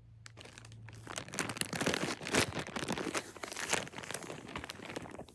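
Thin plastic bag crinkling as it is handled, a dense irregular crackle that grows louder in the middle.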